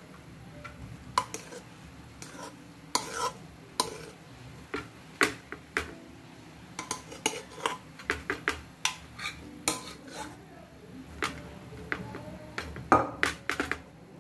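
Steel spoon clinking and scraping against a pressure cooker pot and a plate as cooked rice is served out: irregular clinks with a cluster of quick, louder ones near the end.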